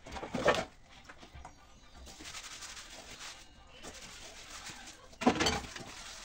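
A dog barking twice: a short bark just after the start and another about five seconds in.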